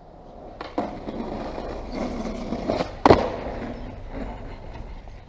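Skateboard wheels rolling over paving stones, a steady rumble broken by sharp clacks of the board hitting the ground, the loudest about three seconds in.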